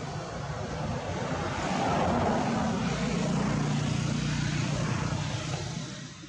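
A motor engine droning as it passes, swelling about two seconds in, then fading away near the end.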